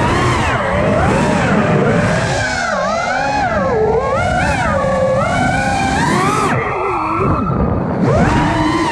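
FPV quadcopter's brushless motors whining, their pitch rising and falling constantly with the throttle as the drone manoeuvres. The pitch swoops down and back up several times, with a deeper dip near the end.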